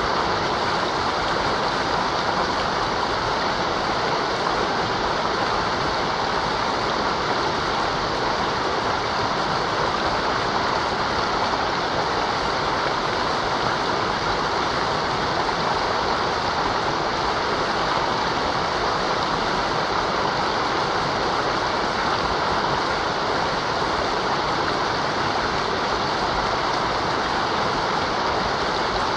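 Mountain river rushing steadily over its bed, an even, unbroken sound of running water.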